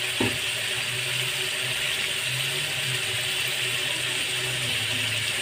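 Chicken and tomato masala sizzling steadily in a wok, with a low hum underneath.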